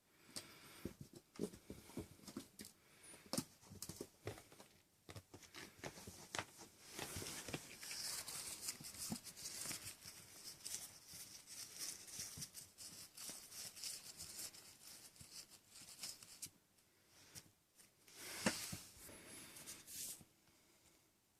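Kittens playing: scratchy rustling and scuffling with scattered light taps and clicks, busiest through the middle of the stretch.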